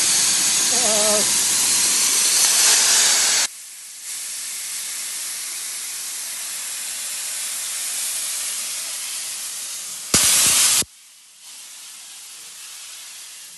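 Steam hissing from the cylinder drain cocks of LMS Jubilee class steam locomotive 45596, the cylinders being cleared of water as the engine starts away. The hiss is loud at first and drops suddenly to a softer hiss after about three and a half seconds. A short loud blast of steam comes about ten seconds in.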